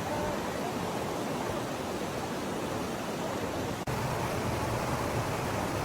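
Steady rushing of a waterfall, an even roar of falling water, briefly cut off about four seconds in and then resuming a little louder.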